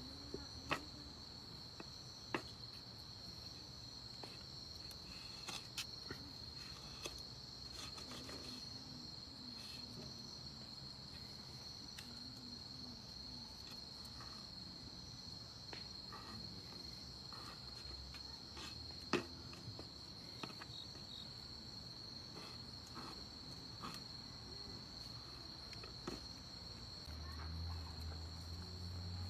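Insects trilling in a steady, unbroken high-pitched chorus, with scattered faint clicks and taps.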